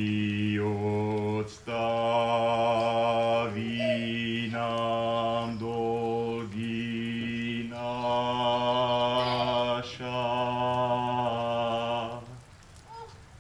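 A man singing a slow chant in a low voice, holding long notes on nearly one pitch in several phrases. He stops about twelve seconds in.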